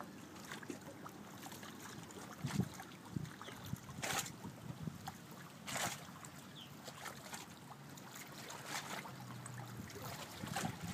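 Faint bayside ambience: wind on the microphone and small waves lapping at the shore, with a few short, louder swishes about four and six seconds in.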